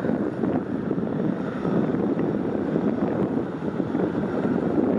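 Wind buffeting the microphone: a steady, rough rushing noise that flickers constantly, with no clear tone or engine whine standing out.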